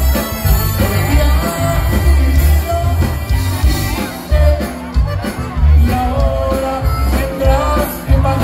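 Live Tejano band playing a song: a male lead singer singing over accordion, electric guitar, keyboards, bass and drums, with a heavy pulsing bass.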